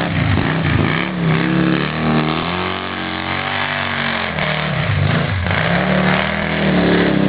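Polaris RZR side-by-side's engine revving up and down as it drives, its pitch rising and falling again and again, running steadier for a stretch in the middle.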